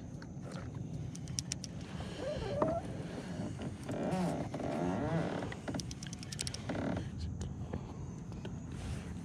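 Spinning rod and reel being worked while fishing a popping cork: two short runs of rapid clicking, over a steady low rumble. A couple of wavering animal calls come in between.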